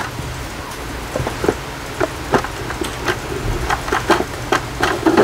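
Irregular crackling and clicking of plastic packaging being handled: a plastic ribbon held by a sticker is being taken off a deck of oracle cards.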